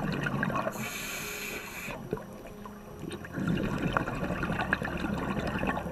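Scuba diver breathing through a regulator underwater: a burst of exhaled bubbles, a hissing inhale about a second in, then a longer rush of bubbles from about three and a half seconds.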